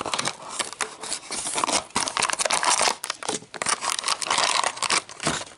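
The paper-and-foil seal of a plastic toy can being ripped off by hand, and the crinkly plastic wrap inside being pulled out: continuous tearing and crinkling with many small crackles.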